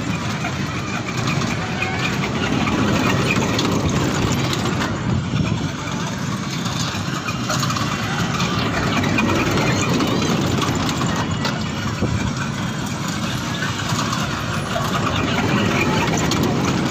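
Kiddie toy-train ride running around its circular track: a steady engine or motor noise with the rumble of the moving cars.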